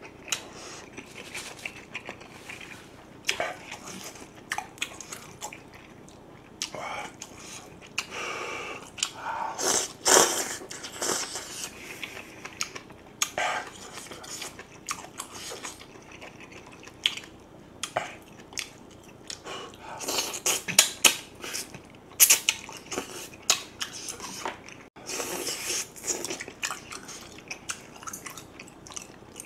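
A person chewing spicy braised monkfish (agujjim) close to the microphone, with irregular sharp clicks of chopsticks against the plate.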